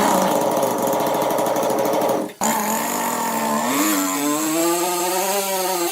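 Sawmill saw cutting wood: a dense, fast-rhythmed cutting noise that breaks off sharply about two and a half seconds in, then a machine saw running with a pitch that wavers up and down.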